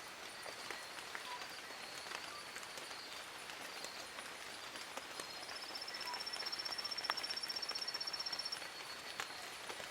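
Steady rain falling on forest foliage, with scattered drips and faint high chirping behind it. About five seconds in, a high, rapid trill rising slightly in pitch runs for about three seconds.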